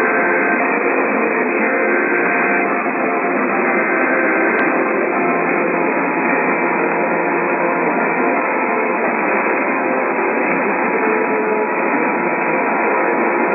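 Radio static from a receiver, narrow and muffled like a phone line, with faint steady tones coming and going underneath.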